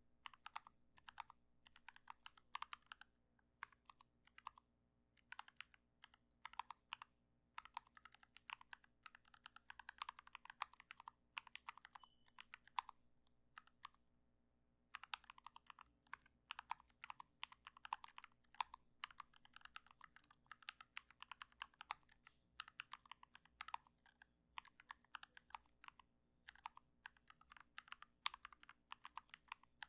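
Typing on a YMDK Wings mechanical keyboard with Gateron Black Ink V2 linear switches and PBT keycaps, its case dampened with butyl and tape-modded. Quick, irregular runs of keystrokes, with a short pause near the middle.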